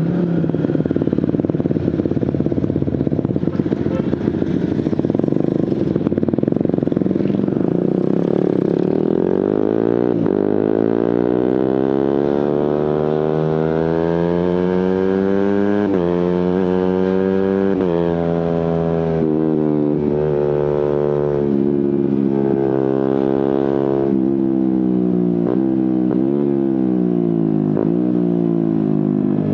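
Suzuki GSX-R150's single-cylinder engine through an aftermarket Prospeed exhaust, heard while riding. It runs steadily at first, then the revs climb, drop sharply once in a quick gear change and climb again. Then the revs fall away, with a few short rev blips near the end of the kind an autoblipper gives on downshifts.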